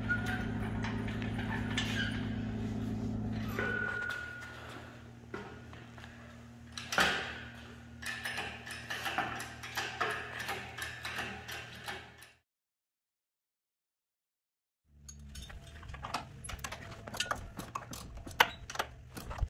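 A steady low hum for the first few seconds, then scattered metallic clinks and knocks of hand tools and an engine hoist working on a light-aircraft engine. The clinks break off into silence for about two seconds and resume near the end.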